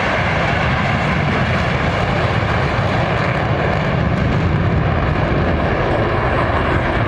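Blue Angels aircraft engines running with a loud, steady roar.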